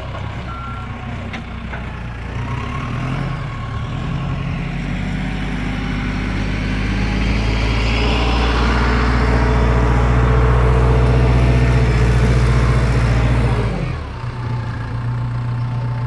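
Engine of a rough-terrain forklift running steadily, growing louder over about ten seconds and then dropping off sharply near the end. A reversing beep sounds right at the start.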